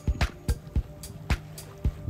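Background music with a steady beat of sharp percussion strikes over sustained tones.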